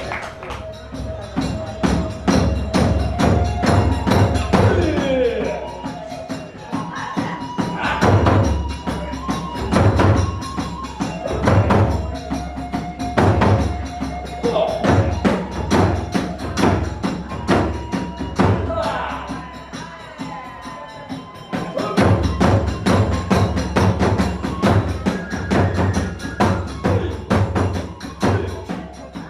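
Kagura hayashi accompaniment. A drum beats a steady pattern and hand cymbals clash, while a bamboo flute plays long held notes that slide between pitches in places.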